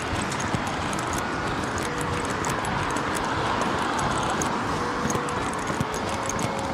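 A runner's shoes striking pavement in a steady rhythm of footfalls, over a constant background hiss.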